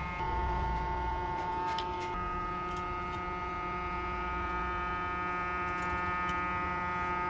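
Steady electrical hum with a stack of steady tones, as from a hot-air rework gun heating an iPhone 7 Plus charging-port flex to soften the adhesive holding it down. A few faint ticks from the work sit over it.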